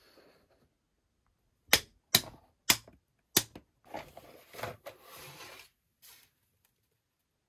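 Four sharp plastic snaps in under two seconds as the plastic fasteners holding a plush toy in its cardboard box are freed, followed by rustling of the packaging and plush fabric as the toy is pulled out.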